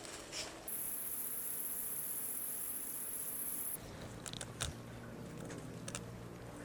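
A high, steady insect buzz starts about a second in and cuts off suddenly a little before four seconds. After it, a low steady hum remains, with a few sharp clicks.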